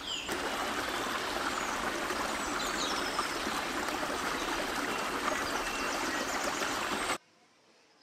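Woodland stream running with a steady rushing noise, with a few faint bird chirps over it. It cuts off abruptly about seven seconds in.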